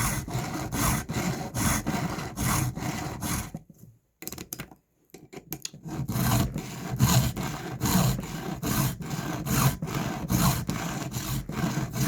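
Hand file rasping across a chainsaw chain's teeth in steady strokes, about two a second, with a pause of about two seconds a third of the way through.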